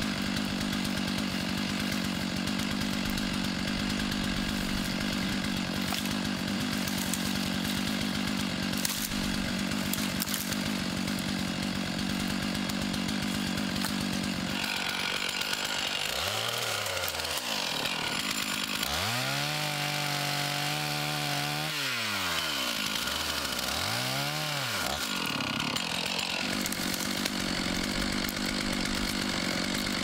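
Gas chainsaw running steadily while cutting limbs. Around the middle its engine pitch drops and rises again several times as the throttle is let off and squeezed, then it settles back to steady running.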